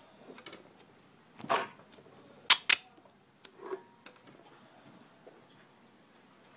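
Handling noise from hands working with paper tape and small craft objects: a short rustle, then two sharp clicks close together, the loudest sounds, and a few faint taps.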